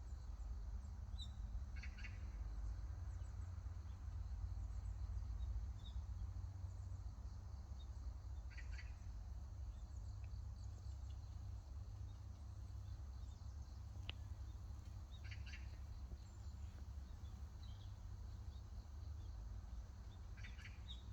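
Wild birds calling: four short bursts of quick chirps, spaced roughly six seconds apart, with fainter single chirps between them. A steady low rumble runs underneath.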